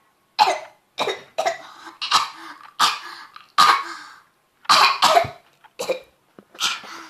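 A person coughing repeatedly: about ten short coughs in a row, some coming in quick pairs.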